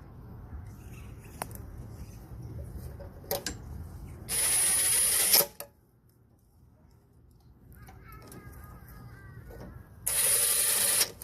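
Power drill driving bolts, two short runs of about a second each, the second near the end. This is the heat shield's 8 mm bolts going back in.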